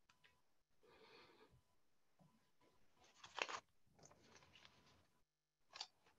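Near silence: faint room tone with a few short, soft scratchy noises, the loudest about halfway through.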